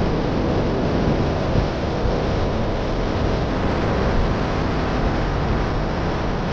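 Waterfall water rushing and crashing, a steady, loud, unbroken noise.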